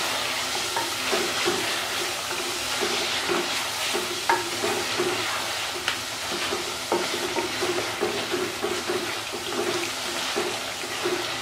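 Chicken and ground spices sizzling in hot oil in a clay pot while a wooden spatula stirs and scrapes around it. A few sharp knocks of the spatula against the pot are heard. This is the bhuna stage, the spices being fried with the chicken.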